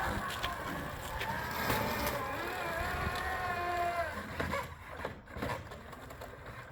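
Drive motor of a remote-control aircraft tug whining as it turns the towed model plane around, the pitch sliding up and down with the throttle. The whine stops about four and a half seconds in.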